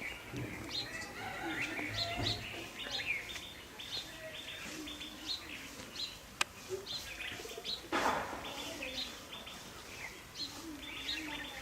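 Small birds chirping over and over in quick short notes. A sharp click comes about six and a half seconds in and a brief burst of noise around eight seconds.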